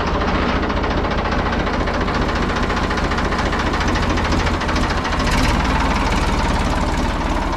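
Ford three-cylinder diesel tractor engine running steadily after being started, with an even, rapid beat.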